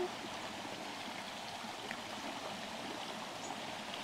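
Steady rush of a shallow stream running over rocks.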